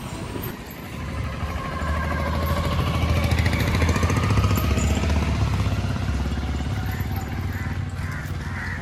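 A motor vehicle engine running close by, growing louder over the first few seconds and then slowly fading as it passes.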